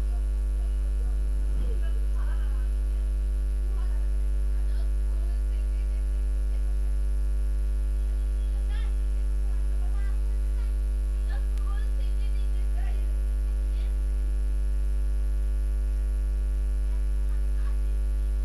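Steady low electrical mains hum with a buzzy row of overtones, with faint voices in the background now and then.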